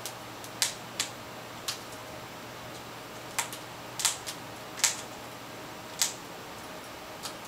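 Citron cockatoo nibbling a food pellet held in its foot, its beak cracking off pieces in sharp, irregular clicks, about nine of them.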